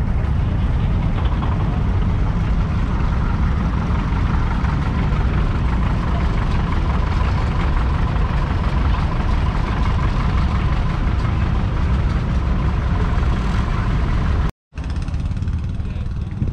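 Vintage tractor engine idling steadily with a heavy low rumble. It cuts out for a moment near the end and comes back slightly quieter.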